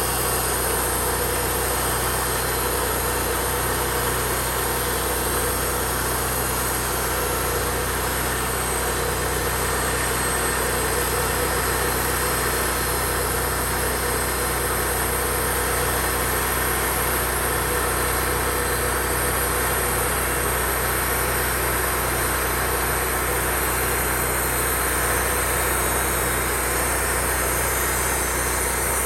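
An engine running at a steady speed, holding the same pitch and level throughout.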